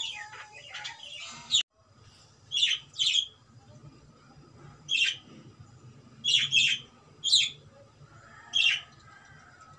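Cockatiel chirping. A quick run of chatter stops abruptly, then come about seven short, sharp chirps, each falling in pitch, spaced roughly a second apart.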